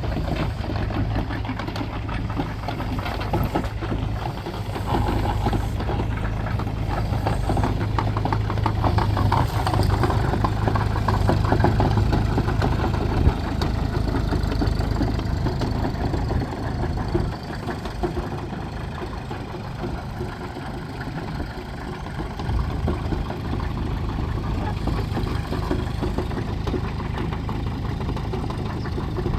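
Hyundai Robex35Z-9 mini excavator's diesel engine running steadily at idle, its level swelling somewhat in the middle and easing off later.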